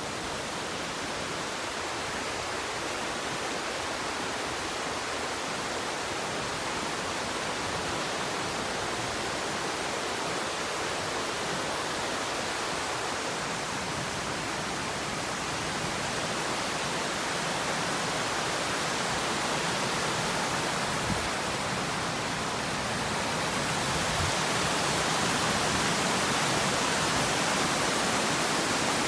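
Waterfall: a steady rush of falling water, growing a little louder about two-thirds of the way through.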